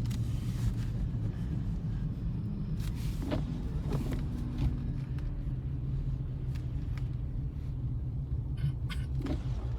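Steady low rumble of a car driving on snowy roads, heard from inside the cabin, with a few faint clicks.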